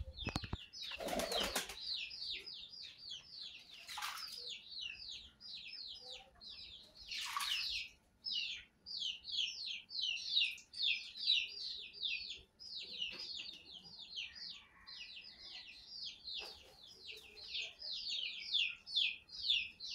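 White fantail pigeon bathing in a shallow bowl of water, flicking its wings in quick repeated splashes at about four a second, with three louder splashing flaps about a second, four and seven seconds in.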